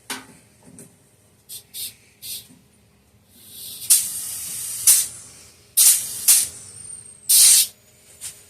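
Compressed air hissing from a small cart tire's valve stem in short bursts and one longer rush, as the tire is filled or let down toward 20 PSI.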